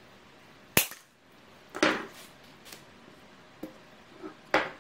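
Diagonal cutters snipping a steel compression spring in half with one sharp snap about a second in. After it come a louder knock and several lighter clicks and taps as the small metal parts and the cutters are set down on the wooden workbench.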